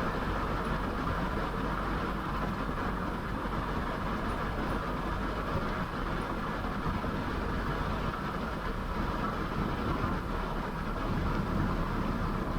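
Honda Fit driving, heard from a camera mounted outside the car: steady road and tyre noise carrying a low droning "gō" sound, the abnormal noise found on a test drive.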